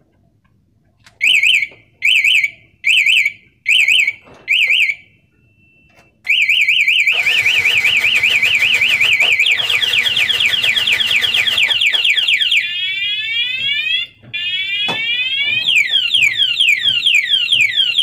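Motorcycle anti-theft alarm siren set off by disturbing the locked bike: five short warbling beeps, then a continuous siren that cycles through different tones — a fast warble, then repeated falling chirps, then quicker rising sweeps, a brief break, and falling chirps again.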